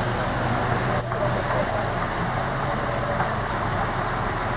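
Off-road vehicle's engine idling steadily, with a steady rush of noise over it.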